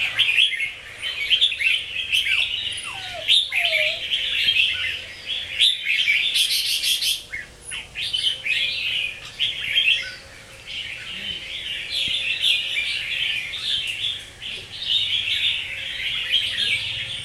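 Red-whiskered bulbul singing and chattering almost without pause in quick warbled phrases, with a few downward-sliding notes and a brief fast rattling burst in the middle.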